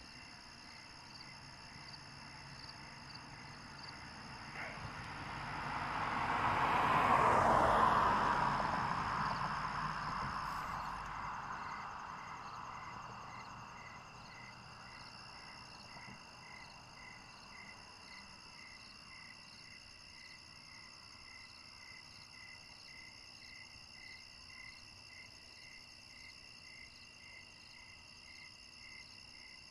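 Crickets chirping: several steady high insect tones layered together, one of them pulsing about twice a second. A louder rushing noise swells up about four seconds in, peaks a few seconds later and fades away by about fourteen seconds.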